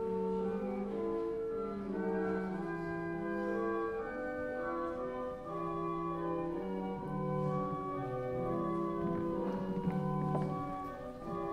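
Pipe organ playing slow music in held notes, several parts moving against one another.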